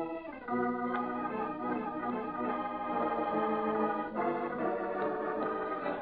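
Organ playing a short musical bridge of held chords, moving to a new chord about half a second in and again around four seconds in. It is a scene-change cue in an old-time radio drama.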